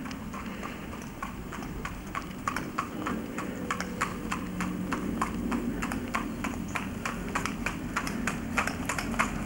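New Forest pony's hooves clip-clopping on a tarmac road at a trot, about four hoofbeats a second, growing louder as the pony approaches, over a low steady rumble.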